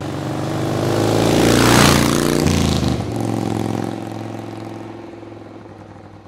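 Vehicle engine sound effect: it starts suddenly, revs up to its loudest about two seconds in, then drops and fades away, like a vehicle going past.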